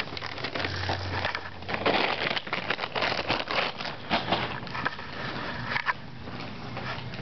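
Motorized crinkly paper toy bag shaking and rustling in quick irregular crackles, with a brief low motor hum in the first second. Through the second half, cat fur brushes and scuffs right against the microphone.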